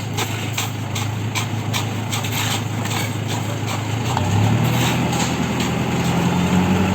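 Concrete mixer's engine running steadily, with a light clicking about three times a second over the first few seconds; the engine note grows louder and fuller about four seconds in.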